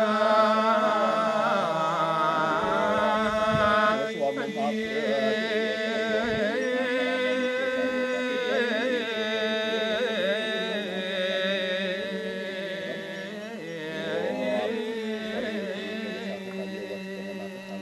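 Hindu devotional chanting: a single voice sings a slow, ornamented mantra melody over a steady held low drone.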